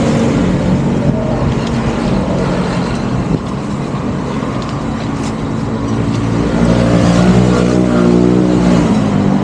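A motor vehicle engine running steadily under road noise. Its pitched note grows louder and clearer about two-thirds of the way in.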